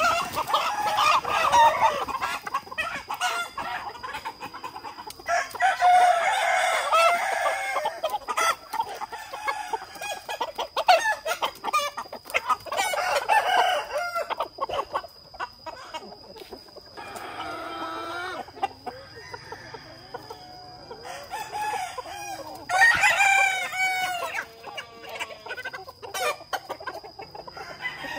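A large flock of chickens clucking, with roosters crowing again and again; the loudest bouts of calls come in several waves. Frequent short clicks and rustles run underneath.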